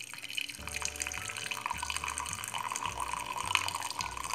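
Coffee poured in a thin stream from a jug into a ceramic mug, trickling and splashing steadily.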